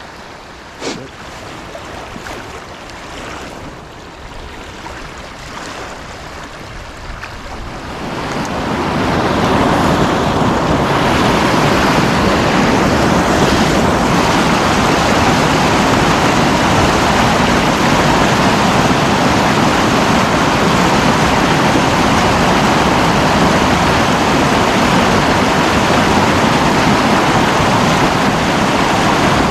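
River water rushing over a low concrete dam: a lighter wash at first, then a loud, steady rush from about eight seconds in.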